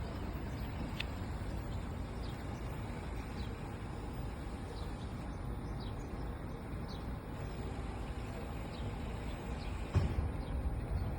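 Outdoor ambience: a steady low rumble with faint, short bird chirps scattered through, and a brief knock about ten seconds in.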